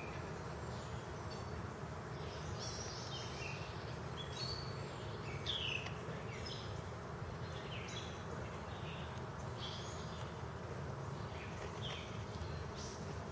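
A steady hum of honeybees buzzing. Short high bird chirps come every second or so over it, the loudest about halfway through.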